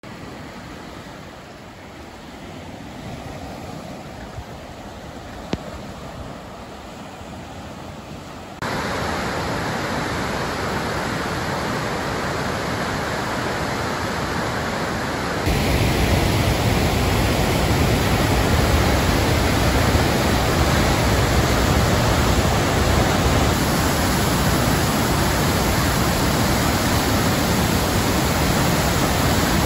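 Rushing floodwater: a swollen, fast river flowing, then floodwater pouring over a dam into churning rapids. The noise is steady and comes in three stretches, each louder than the last, the loudest from about halfway on at the dam.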